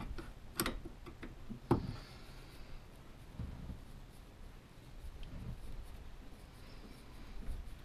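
Metal spanner on the 13 mm pipe union of a Land Rover's clutch master cylinder as it is worked loose: two sharp clicks within the first two seconds, then faint rubbing and handling.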